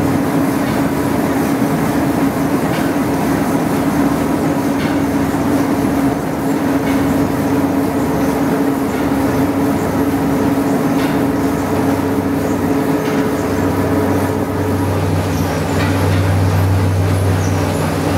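Steam-driven rice mill machinery running: belt-driven pulleys and milling machines making a steady, loud clattering din over a constant hum, with faint clicks. The low hum grows stronger about three-quarters of the way through.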